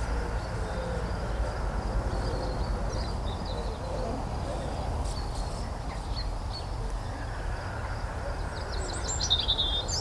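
Outdoor ambience: a steady low rumble with faint, scattered bird chirps, and a short burst of bird twittering near the end.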